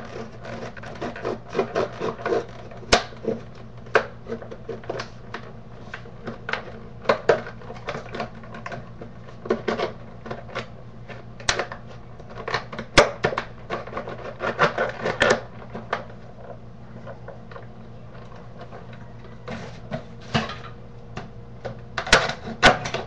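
Hard plastic blister packaging being worked open: irregular crackling, snapping and clicking of stiff plastic, over a steady low hum.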